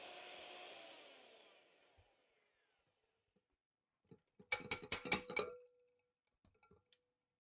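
Electric hand mixer running, then switched off, its whine falling as the motor winds down over the first two seconds. About four and a half seconds in comes a quick run of about six sharp taps with a brief ring: the metal beaters knocked against the glass bowl.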